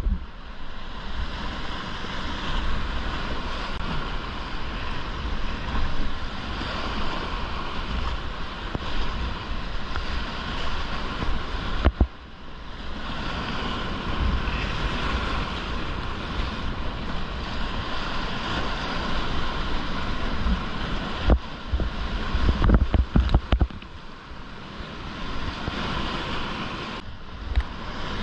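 Whitewater rapids rushing steadily around a kayak, with water and wind buffeting the action camera's microphone and a few sharp knocks partway through.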